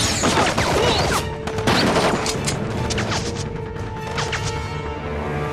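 Action-scene sound effects of a fistfight: a rapid run of hits and crashes with a few swishes, over dramatic background music with a steady held tone.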